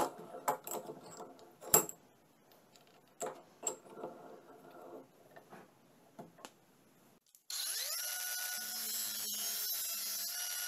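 Scattered metal clicks and knocks as a hole saw is fitted into a bench vise and the vise is screwed tight. About seven seconds in, an angle grinder starts with a rising whine as it spins up, then runs steadily as its cutting disc grinds into the hole saw's steel body. The grinder is the loudest sound.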